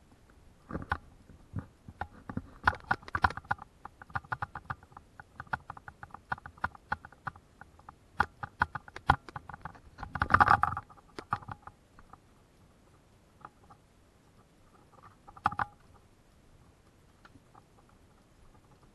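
Footsteps on a narrow wooden plank boardwalk, the loose boards knocking and clattering underfoot in an irregular walking rhythm. The clatter is busiest through the first twelve seconds, with a louder clunk about ten seconds in and another near fifteen seconds, then it mostly dies away.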